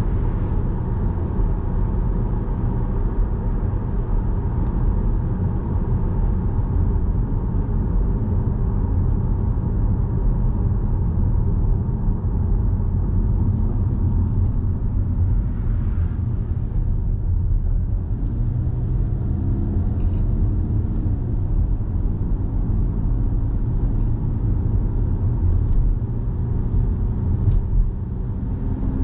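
Car engine and tyre road noise heard from inside the cabin: a steady low rumble, with the engine note shifting in pitch a few times in the second half.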